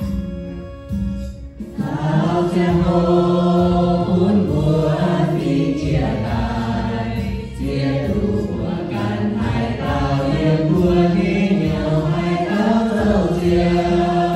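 A small mixed choir of men and women singing a Christian hymn in the Iu Mien language, backed by a keyboard. After a short keyboard passage, the voices come in together about two seconds in.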